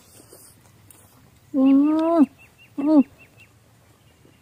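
An animal calling twice, a drawn-out call about a second and a half in, then a short one.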